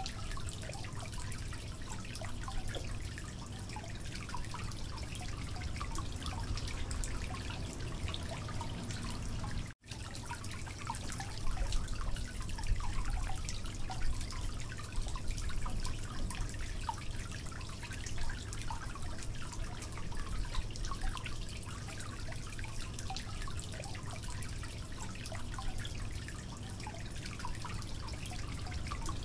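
A steady patter of dripping, trickling water with scattered small ticks over a low hum. The sound drops out for an instant about ten seconds in and is a little louder after.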